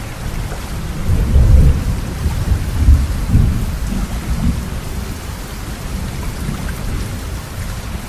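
Heavy rain pouring steadily, with rolling thunder rumbling loudest about a second in and again around three seconds in. The sound cuts off suddenly at the very end.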